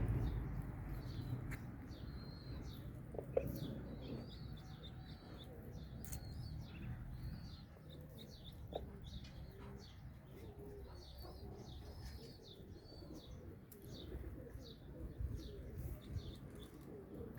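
Farmyard birds: many short, high chirps run throughout, and pigeons coo low in the second half, over a low rumble.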